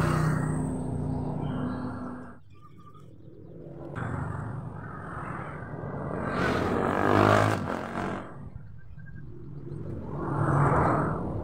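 Honda Vario 125 scooter engine revved up and let back down about three times, driving the CVT. The transmission runs quietly with its new pulley bearing.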